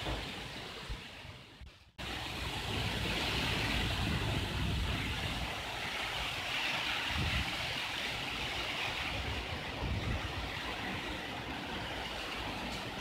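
Cyclone-force wind and heavy rain: a steady rushing hiss of driving rain over a low rumble of wind buffeting the microphone. About two seconds in the sound sinks away, then cuts abruptly back in at full strength.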